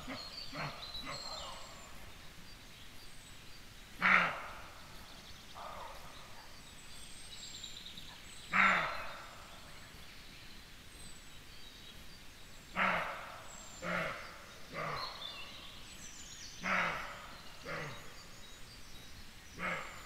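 Roe deer buck barking again and again, a short hoarse bark every one to four seconds at uneven intervals, with faint bird chirps behind. Roe deer give this bark on sensing danger and also to mark territory.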